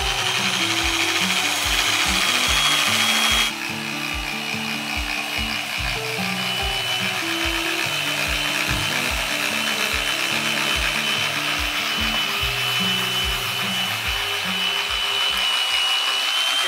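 Power sander running continuously against the fiberglass and epoxy of a boat rudder, a rough grinding hiss with a steady high whine; it drops a little in level about three and a half seconds in. Background music with a steady beat and bass line plays underneath.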